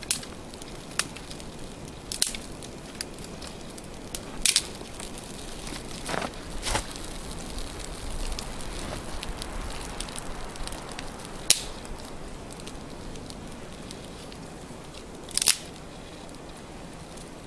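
Small birch-bark and pine-twig kindling fire being pushed together by hand: a low crackle with scattered sharp snaps, about seven in all. The pine is wet and has not fully caught; mostly the bark is burning.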